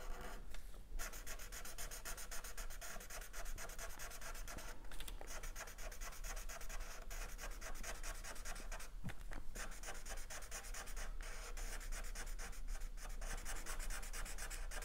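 Black felt-tip marker scratching across paper in quick back-and-forth shading strokes, broken by a few brief pauses.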